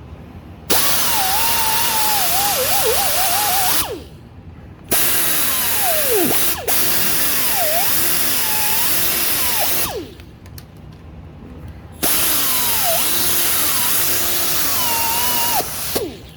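Handheld power tool running in three bursts of a few seconds each, its whine rising and dipping as it bears on the work: cleaning rust off the brake caliper bracket where the pad shims clip in.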